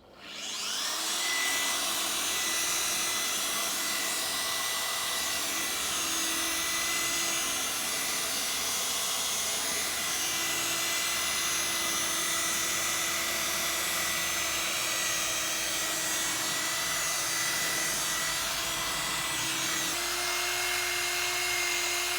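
Electric machine polisher starting up and running steadily on car paint with finishing compound, a steady motor whine with a lower hum; its pitch steps up slightly near the end.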